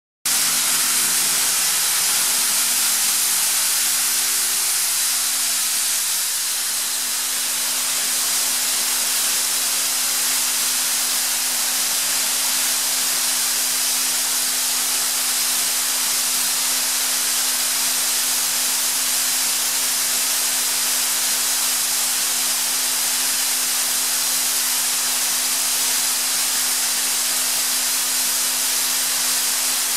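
Atlas Copco GA315 VSD oil-injected rotary screw air compressor running: a steady hiss of air with a steady low hum underneath.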